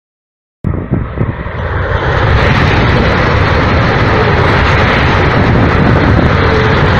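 Talgo 350 high-speed trains passing at speed: a loud rushing noise with a low rumble. It starts abruptly within the first second, builds over about two seconds, then holds steady.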